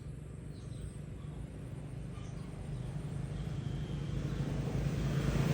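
A motor vehicle's engine drawing nearer, its low hum growing steadily louder.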